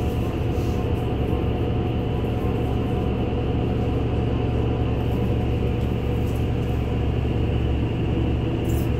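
NefAZ-5299 city bus heard from inside the cabin while under way: a steady engine and drivetrain drone with road noise, with a brief faint hiss near the end.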